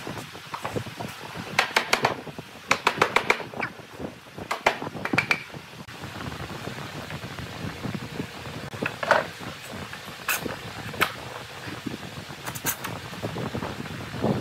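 Bar clamps being set and tightened across edge-joined wooden boards: a few clusters of quick clicks in the first five seconds, then scattered single knocks of metal clamp parts against the wood.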